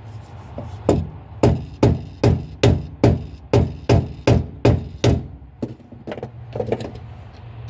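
A flathead screwdriver knocked against the metal lock ring of a fuel pump in a run of about a dozen sharp taps, two or three a second, driving the ring round into its locking slots. A couple of fainter taps follow.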